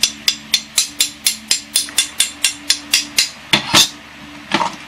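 Steel blade of a large machete-style knife tapped quickly with a small metal rod, about four light taps a second, each giving a short high ring. This is a ring test of the steel, where a nice ring is taken as the sign of spring steel. A louder knock comes near the end, and a fan hums faintly underneath.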